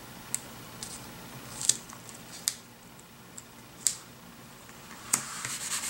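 Fingernails and a small paper sticker on a planner page: a handful of sharp, separate clicks and taps as the sticker is pressed into place, then a denser paper rustle near the end.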